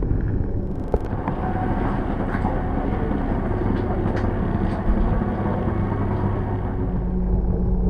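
Airport X-ray baggage scanner's conveyor belt running with a steady low rumble and hum, heard from on the belt inside the tunnel, with scattered light clicks and a knock about five seconds in.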